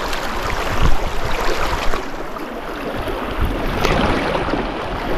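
Shallow river water running and rippling close to the microphone, a steady rushing noise with low rumble, and a couple of short knocks about one and two seconds in.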